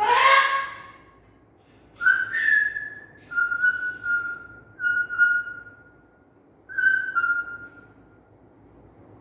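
Pet parrot giving one loud, harsh squawk, then whistling four times: clear held notes about two seconds apart, each dipping slightly in pitch.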